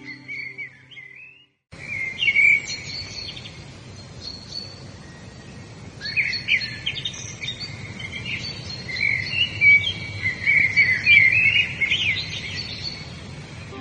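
Several songbirds chirping and singing over a steady outdoor hiss, with a brief drop to silence less than two seconds in; the calls come thickest near the middle and toward the end.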